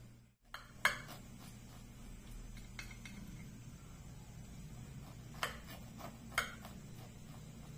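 Knife blade clinking against a glass cake stand while slicing a corn cake: a few sharp, scattered clicks, with two clearer ones near the end.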